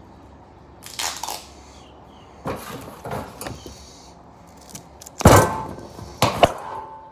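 Duct tape being pulled off the roll and snipped with scissors, in four short bursts of ripping and rustling. The loudest, a little over five seconds in, comes with a knock.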